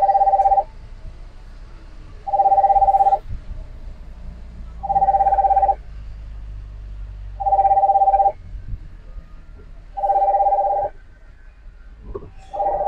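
Telephone ringing: six identical rings, each a warbling two-note tone lasting under a second, repeating about every two and a half seconds. A steady low rumble from the moving vehicle runs underneath.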